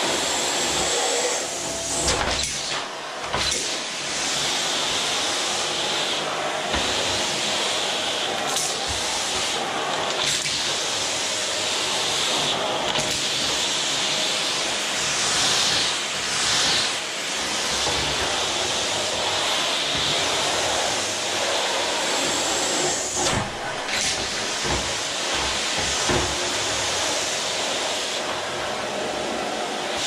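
Electrolux vacuum cleaner running steadily on a wooden floor, a high hissing rush with a faint steady hum under it, changing briefly a dozen or so times as the floor nozzle is pushed back and forth.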